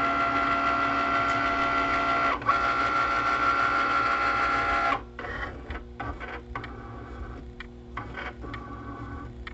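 Cricut Maker cutting machine scanning the registration marks of a printed sticker sheet for print-then-cut: its carriage and roller motors whir steadily for about five seconds, with a brief break partway, then move in quieter short stop-start runs.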